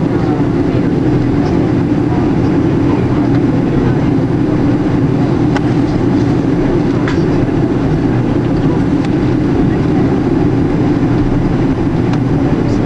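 Steady cabin noise inside a Boeing 777-200ER taxiing: the jet engines running at low taxi thrust under a rumble of the landing gear rolling over the taxiway, with a few faint ticks.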